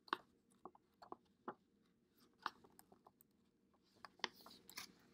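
Faint handling sounds of a picture-book page being gripped and turned by hand: a few scattered soft paper clicks, then a denser rustle of the page turning near the end.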